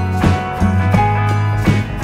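Background music with guitar and a steady beat.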